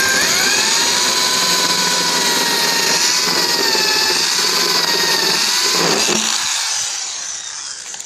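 Electric drill running under load, its whine speeding up at the start and dipping and recovering as it works, then slowing and winding down over the last two seconds.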